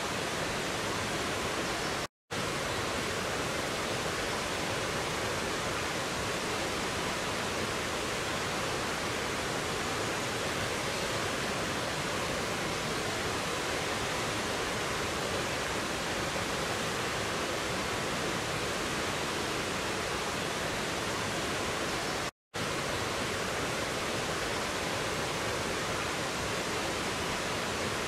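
Mountain stream rushing over boulders in a small waterfall: a steady, even rush of water. The sound cuts out to silence for a split second twice, about two seconds in and again about twenty seconds later.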